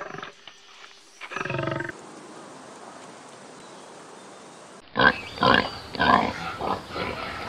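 A lion gives one short call about a second in. Near the end a pig grunts over and over, several loud grunts in quick succession; these are the loudest sounds.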